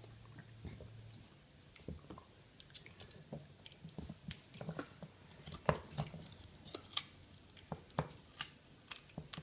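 A Shiba Inu chewing a bully stick: irregular crunches and sharp clicks of its teeth biting into the dried chew, which become louder and more frequent about halfway through.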